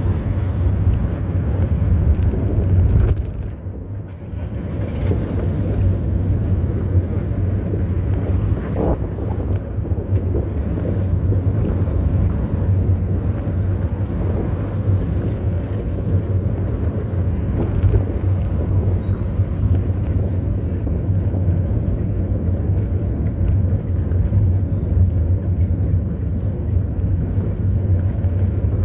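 Steady low rumble of wind buffeting the microphone while riding a bicycle, with a brief lull about four seconds in.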